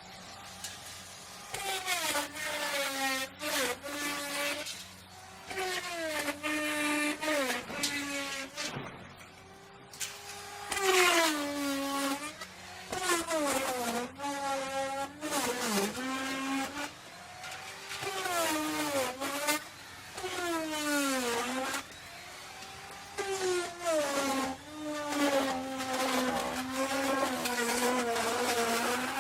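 Electric wood router running and cutting wood in repeated passes, a high whine over a hiss of chips being cut. Its motor pitch sags each time the bit bites into the wood and climbs back as it frees up. There is a quieter spell of a couple of seconds about a third of the way in.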